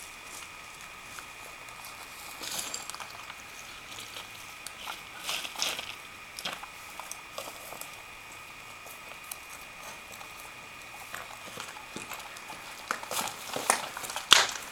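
Footsteps crunching and brushing through tall grass and loose stones, in irregular bursts that come thickest near the end, over a faint steady high tone.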